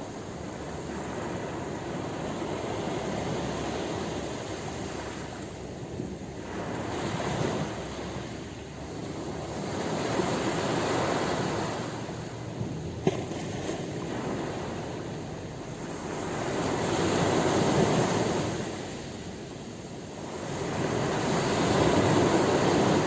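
Ocean surf: waves break and wash up the shore in slow swells of rushing water, rising and falling every few seconds.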